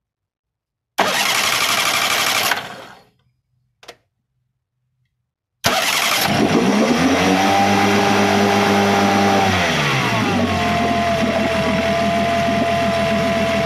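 Honda BF15A four-stroke outboard motor, running on a replacement CDI ignition module, cranked in a short burst that does not catch, then starting about six seconds in and running steadily. Around ten seconds in its speed drops and it settles at a lower, steady running speed.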